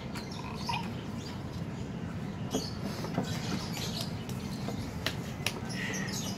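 Cardboard game box being handled: flaps pushed open and an inner box slid out of its sleeve, giving scattered scrapes and light taps, over a steady low hum.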